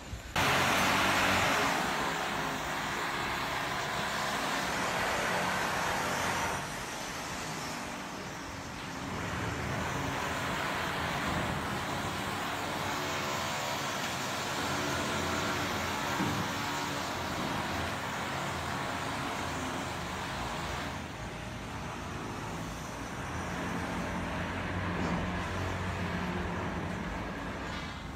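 Steady vehicle-like noise: a low hum under a broad hiss. It starts abruptly and shifts in level about six and a half seconds in, and again about two-thirds of the way through.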